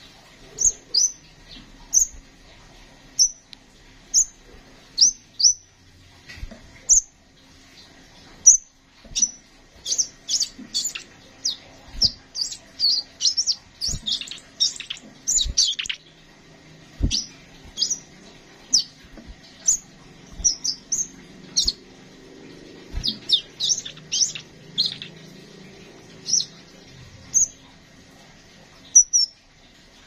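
Male crimson sunbird calling and singing: sharp, high chirps, some single and some in quick runs, busiest about halfway through.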